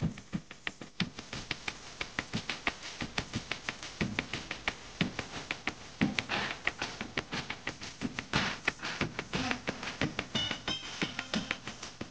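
Dance music built on a fast, even run of sharp taps or clicks, about four to five a second, with little melody over them.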